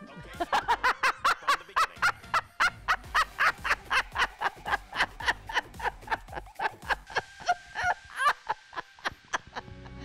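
A woman laughing heartily on cue, a deliberate 'laughing for no reason' demonstration: a long unbroken run of rapid ha-ha pulses, about five a second, stopping just before the end.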